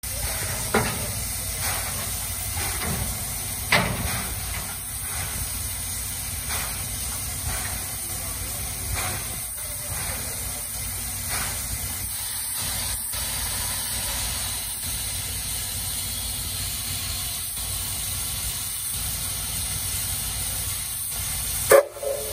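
JNR Class C11 2-6-4 tank steam locomotive standing in steam, with a steady hiss and scattered light knocks. A single loud metallic clank near the end.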